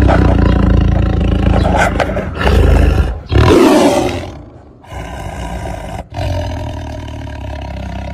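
Tiger roaring: deep, loud roars through the first half, then a quieter, steady low rumble.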